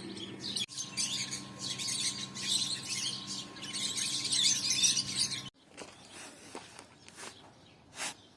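Many small birds chirping busily together over a faint steady hum; the chorus cuts off suddenly about five and a half seconds in, leaving a few faint clicks and a single short chirp near the end.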